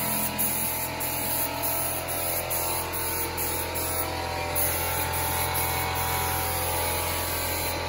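Air paint spray gun hissing as it sprays, the hiss breaking off briefly several times as the trigger is released, over a steady low hum.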